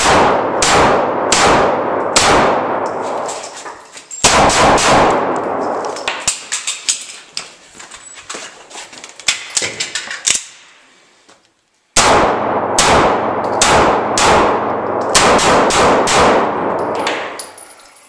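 Beretta PX4 9mm pistol fired in quick strings of shots, roughly one every three-quarters of a second. Each shot rings on in a long echo. A pause with light metallic clinks separates the strings, and a second string starts about twelve seconds in.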